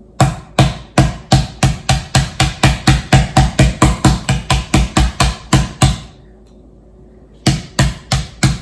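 Plastic-headed potato masher pounding Oreo cookies inside a zip-top plastic bag on a hard stone countertop: a quick run of sharp knocks, about four a second for some six seconds, then a short pause and a few more strikes near the end.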